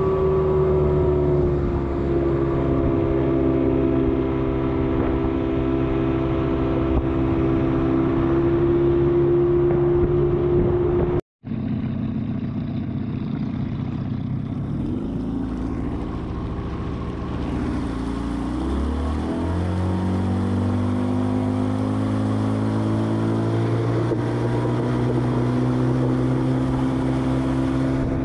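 A 25 HP Yamaha two-stroke outboard motor running at speed, its note steady. About eleven seconds in the sound cuts off abruptly for a moment. When it comes back the engine's pitch wavers and then rises as it speeds up, before holding steady again.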